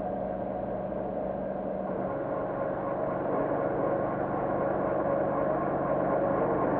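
Steady machine hum, with several steady tones, from a laboratory strength-testing machine pressing down on a barnacle shell. It grows slowly louder as the load builds toward crushing.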